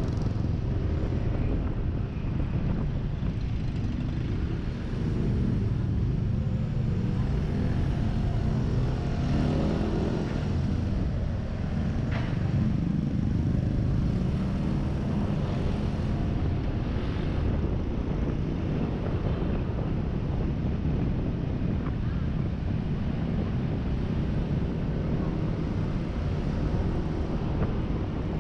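Yamaha NMAX 155 scooter being ridden in town traffic: a steady mix of its single-cylinder engine and road and wind noise on the rider's microphone.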